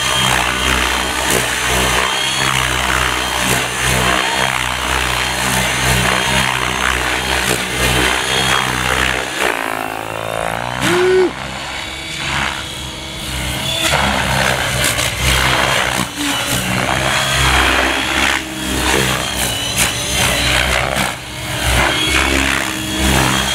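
Gaui X7 electric RC helicopter in flight at low head speed: the rotor blades and motor whine steadily, the pitch shifting as it manoeuvres, with a brief dip and a sweeping change of pitch about ten seconds in.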